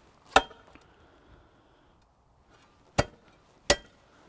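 A steel spade jabbed into frozen ground strikes three times, each a sharp clink with a brief metallic ring. The ground is frozen solid, so the blade bounces off rather than digging in.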